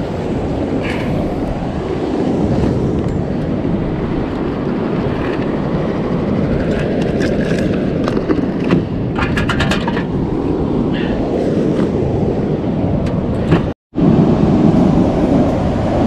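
Steady rumble of wind on the microphone and ocean surf, with a few faint handling clicks and a short run of quick ticks about nine seconds in. The sound cuts out for an instant near the end.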